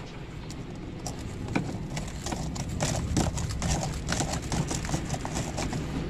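Quick, irregular clicking and knocking from the washing machine's corrugated plastic drain hose being handled and worked onto the drain valve outlet. The clicks thicken from about two seconds in and die away near the end.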